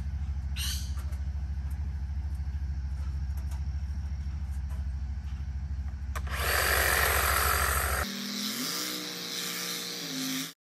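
Hedge trimmer running with a steady motor hum. Its blades cut into ficus foliage from about six seconds in, adding a loud rustling hiss, and the motor cuts off about two seconds later.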